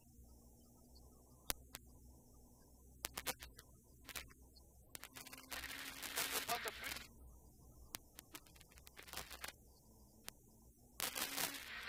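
Rally car running at speed, heard faint and muffled, with scattered sharp clicks and two bursts of crackling noise, about six seconds in and again near the end.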